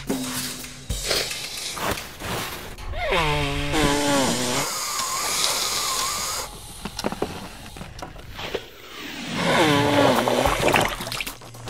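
A person blowing their nose hard into a tissue: loud, raspy, honking blasts, once about three seconds in and again near the end, with a hissy stretch between them.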